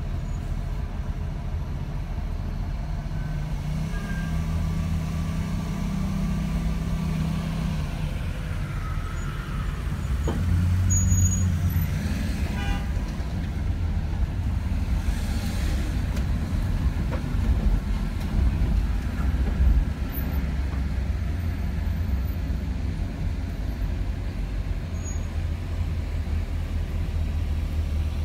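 City street traffic: a steady low engine rumble from slow-moving cars, trucks and buses, swelling a little now and then as vehicles pass or pull away.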